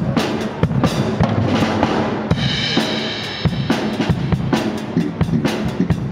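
Live drum kit playing a steady beat with kick drum, snare and cymbals, as part of a small band's instrumental intro; a high ringing tone holds for about a second near the middle.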